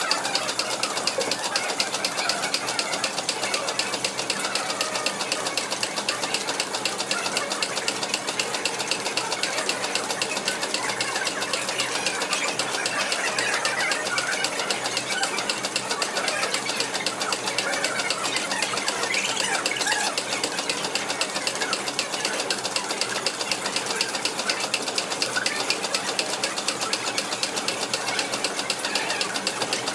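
Stationary steam engine driving a workshop line shaft, a steady, fast, rhythmic thumping, with the clatter of the belt-driven machine tools it powers.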